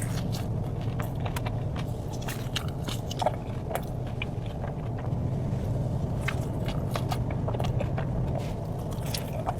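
Close-miked eating: bites and chewing with many short, sharp crunchy clicks, over a steady low hum.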